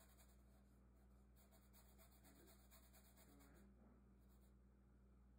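Very faint scratching of a paintbrush on a canvas board, over a low steady hum.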